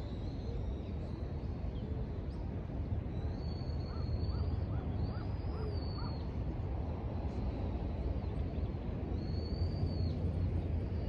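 Outdoor park ambience: birds calling over a steady low city rumble, with a run of short repeated notes in the middle and a few drawn-out high whistled notes.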